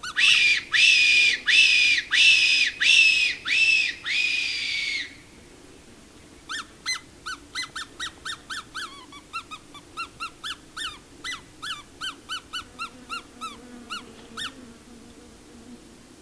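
Fox whistle blown as a predator call: six drawn-out squeals, each sliding down in pitch, imitating a rabbit in distress. After a pause comes a run of quick, fainter squeaks, about three a second, to coax the fox in.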